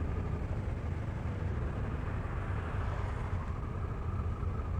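Motorcycle engine idling steadily while the bike stands still.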